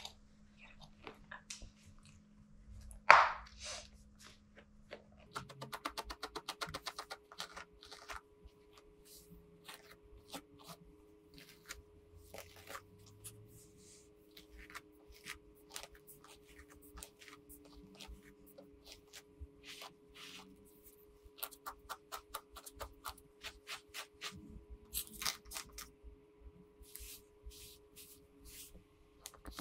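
A grooming brush raking through a Shih Tzu's long coat in quick runs of short, scratchy strokes, with one loud knock about three seconds in.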